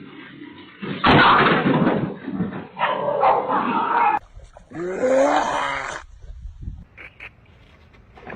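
A dog growling and barking in loud rough bursts, then a pitched, wavering cry in the middle, and faint scattered sounds near the end.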